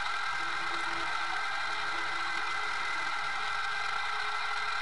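Haas VF3 vertical CNC mill running its program, the spindle turning a 7/16-inch end mill at 2500 rpm as it mills a square: a steady machine whir.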